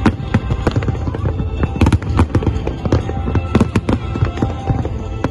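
Fireworks going off in quick, irregular succession: many sharp bangs and crackles overlapping, some a little louder than the rest, over music.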